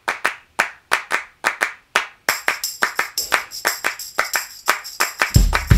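Background music opening with rhythmic hand claps. About two seconds in a high shimmering layer joins and the beat gets busier, and near the end bass and drums come in.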